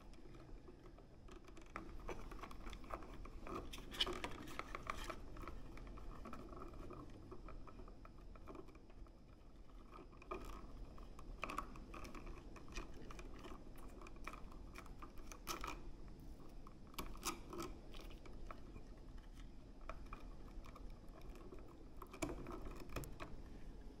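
Faint handling noises from a three-way wall switch and its wiring being worked by hand: scattered small clicks, scrapes and rustles of the switch body and wires against the metal wall box.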